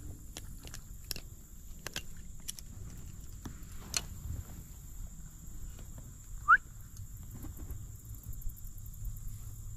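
Scattered light clicks and rustles of a freshly caught bass and the fishing gear being handled at the water's edge, over a steady faint high whine. About six and a half seconds in comes one short, sharp rising chirp, the loudest sound here.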